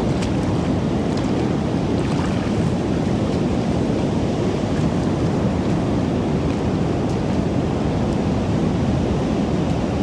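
Steady rush of ocean surf, with wind buffeting the microphone.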